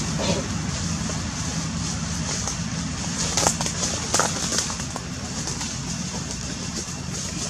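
Outdoor ambience: a steady low hum like a motor running, under a high steady hiss, with two or three short sharp crackles a little past halfway.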